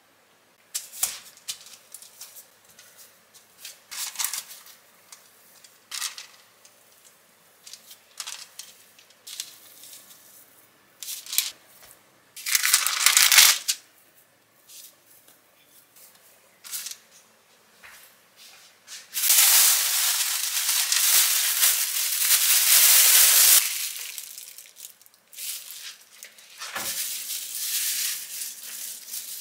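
Hand-work noises while making scone dough on a counter: scattered light clicks and taps, and rustling of parchment paper. A louder crinkling rustle comes about thirteen seconds in, and a long steady rustle lasts about four seconds past the middle.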